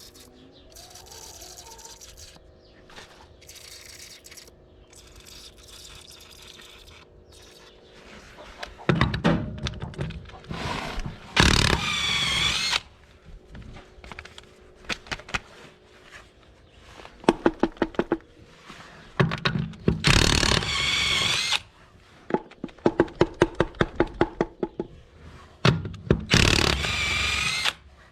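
DeWalt impact with a 13/16 socket hammering the wheel nuts off a grinder mixer's wheel: starting about nine seconds in, several loud bursts, each a rapid rattle of blows with a high motor whine.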